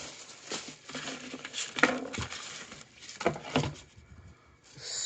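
Irregular rustling and light knocking of accessories and papers being handled and pulled out of a cardboard box, with a louder rustle near the end.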